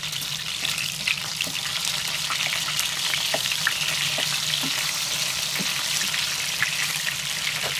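Marinated chicken pieces sizzling steadily as they fry in hot coconut oil in a nonstick pan, with light taps and scrapes of a spatula as the pieces are turned over.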